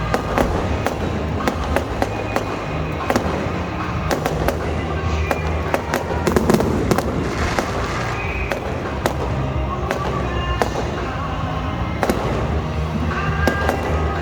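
Fireworks going off in an irregular run of sharp bangs and crackles, with music playing underneath.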